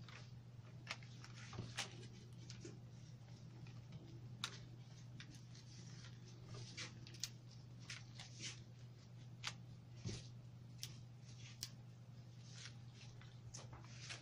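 White rose stems and leaves rustling and clicking against each other as roses are gathered one by one into a hand-held bouquet: faint, irregular clicks and rustles over a steady low hum.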